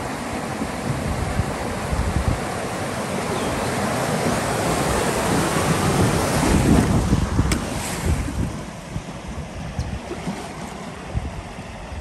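Rushing water as an inflatable kayak runs down a canoe chute, with wind noise on the microphone. The rush swells to its loudest about seven seconds in, with a single sharp click, then eases off.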